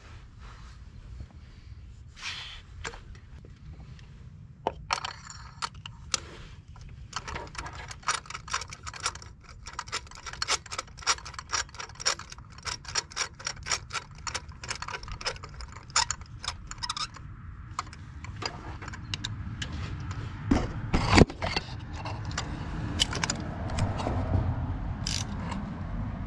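Hand tools working on the engine: a long run of sharp metallic clicks and scrapes, like a ratchet and sockets being worked. There is one loud knock near the end while a low rumble builds.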